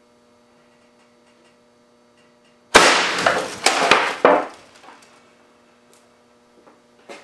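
An air-cannon-fired 12-gauge shotgun shell smashing into an LCD monitor: a sudden loud crash nearly three seconds in, followed by clattering and two more knocks as the monitor and boards fall. The noise dies away within about two seconds.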